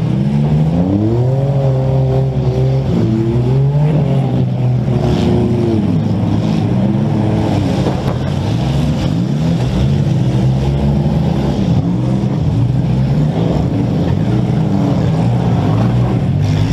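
Demolition derby compact car's engine revving up and down repeatedly as it accelerates and backs off, with a couple of short collision bangs from it ramming another car.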